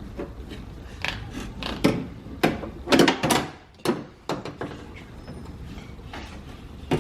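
Hands working inside a car door shell: an uneven string of knocks, clicks and rattles from the metal and plastic parts as the door lock actuator and its linkage are worked loose.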